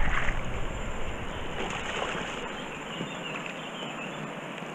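Shallow river water running and rippling close to the microphone. It eases off over the first couple of seconds, then goes on steadily.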